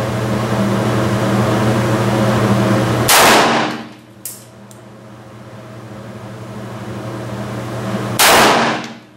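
Two shots from a Bond Arms double-barrel derringer, one about three seconds in and the second about five seconds later, each ringing briefly off the concrete-block walls of an indoor range lane. A steady ventilation hum runs under the first shot.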